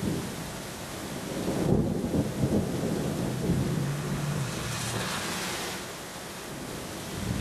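Thunderstorm: thunder rumbling over steady rain, the rumble swelling about two seconds in.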